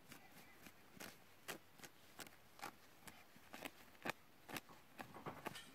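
Feathers being pulled by hand out of a freshly killed hen that has not been scalded: a string of faint, irregular ripping ticks.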